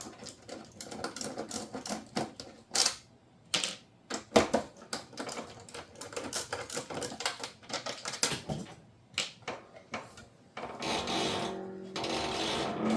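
Irregular clicks and knocks of dishwasher door and control panel parts being handled and worked loose. Near the end, a steady whirring noise runs for about two seconds.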